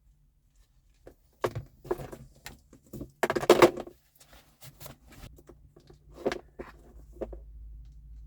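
Irregular knocks and clatter of tools and small parts being handled while a USB socket is wired into a lorry cab, with a dense burst of rattling about three seconds in and a sharp knock past six seconds. A faint low hum comes up near the end.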